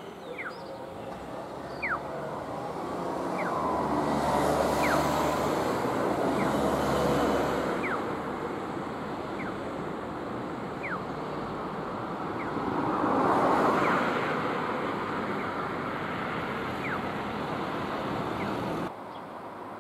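Road traffic passing: one vehicle's low rumble swells and fades in the first half, and another passes about two-thirds of the way in, over a steady outdoor hum with short high chirps scattered throughout. The sound drops suddenly about a second before the end.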